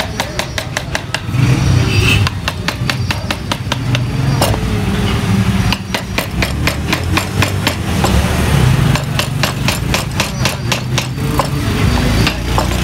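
Wooden mallet tapping a carving gouge into a wooden relief panel, in quick runs of light strikes at about seven a second with short pauses between runs. A low steady hum runs underneath.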